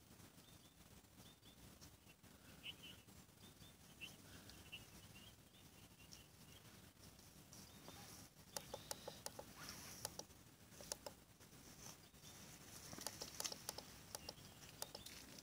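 Near silence from a Sangean DAB radio that has gone quiet on channel 12D, then from about eight seconds in a run of small sharp plastic clicks in two clusters as its buttons are pressed to step through the channels by hand.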